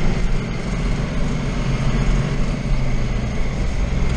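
Tractor engine running steadily while driving, with a continuous rattle and rumble of the moving machine.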